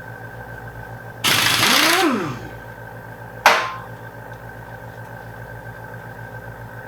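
A power tool on a socket runs for about a second against a rusted oil-pan bolt, its pitch rising and then falling. About two seconds later comes a single sharp metallic clank. A steady low hum sits underneath.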